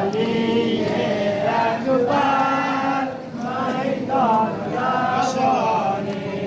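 Male voices chanting a noha, a Shia Muharram mourning lament, in drawn-out sung phrases that rise and fall with short breaks between them.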